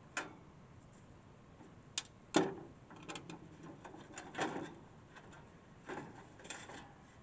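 Handling of a window air conditioner's casing while its cover is being unscrewed and worked off: scattered clicks, knocks and scrapes, about half a dozen separate ones with faint ticks between.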